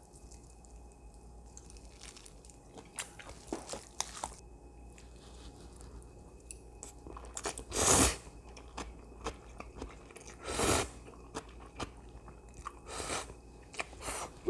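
A person slurping thin wheat noodles (somyeon) dressed in spicy sauce: four loud, short slurps in the second half, with chewing between them. The first half holds only light scattered clicks.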